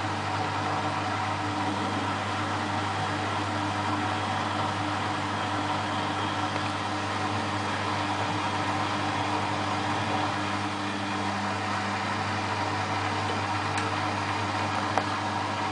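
Beko WMA642 washing machine running steadily early in its spin programme: a constant low hum, with a couple of faint clicks near the end.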